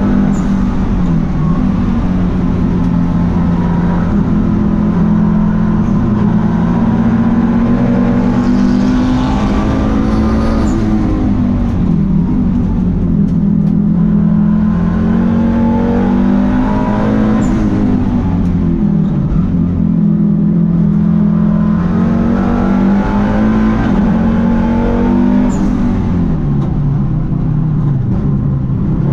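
Volvo T5 turbocharged five-cylinder race engine heard from inside the cabin at race pace, pulling hard with the pitch climbing, then dropping sharply under braking and downshifts several times before rising again.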